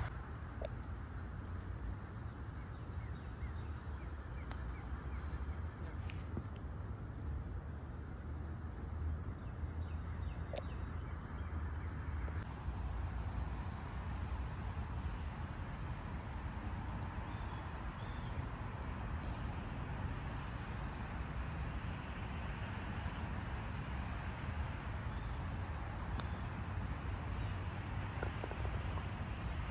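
Insects chirring outdoors in one steady high-pitched drone, which grows louder about twelve seconds in, over a low steady rumble.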